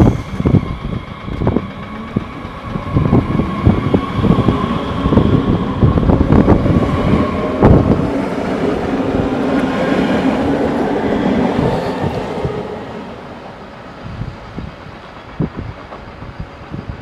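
DB class 430 S-Bahn electric train pulling away from the platform: the traction motors whine, rising in pitch as it speeds up, over repeated wheel clicks on the rails. The sound dies down about twelve seconds in, leaving quieter outdoor noise.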